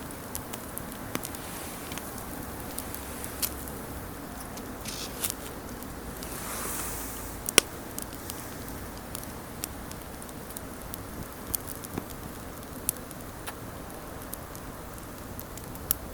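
Wood campfire burning, with irregular crackles and small pops from the burning wood over a low steady rush of flame. A brief hiss comes and goes just before the loudest pop, about seven and a half seconds in.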